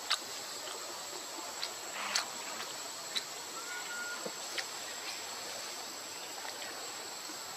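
Outdoor forest ambience: a steady hiss with a thin, high, steady insect drone. A few sharp clicks are scattered through it, the loudest right at the start and about two seconds in, and one brief high note sounds about three and a half seconds in.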